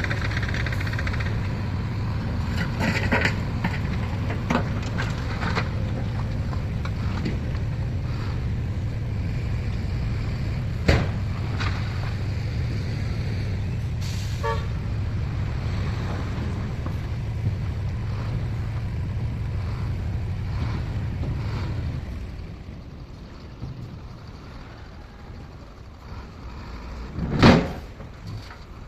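Heavy earthmoving machinery engines running steadily with a low rumble, with scattered clanks and knocks. About two-thirds of the way through the engine noise drops away much quieter. Near the end comes one brief, loud sound.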